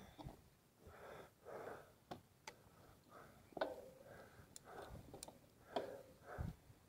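Faint breathing of a person exerting himself, soft irregular breaths, with a few sharp faint clicks among them.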